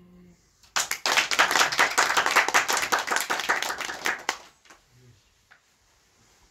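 A man's held sung note ends a moment in, then a group of people clapps in applause for about three and a half seconds before dying away.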